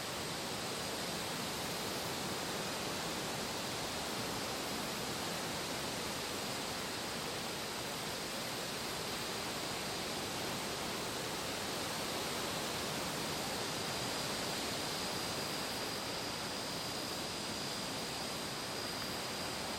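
Steady, even hiss of ambient noise with a faint high tone, and no separate events.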